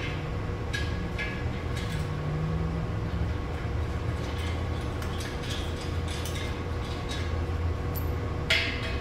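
Light metallic clicks and taps from handling a bolt against a steel A-frame leg and leg brace, sharper and louder near the end, over a steady low rumble.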